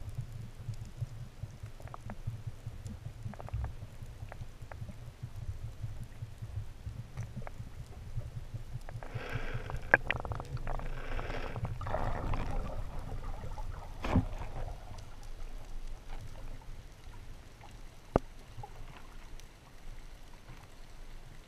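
Underwater sound picked up through a camera housing: a steady low rumble of water moving past, with scattered faint crackles. For several seconds in the middle a louder rushing noise swells up, and a few sharp clicks stand out, one near the middle and one near the end.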